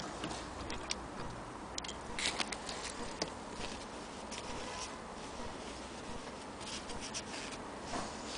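Light handling noises: a sharp click at the start, then scattered small clicks and cloth rustling as a freshly sewn piece of cotton fabric is taken from a sewing machine and handled.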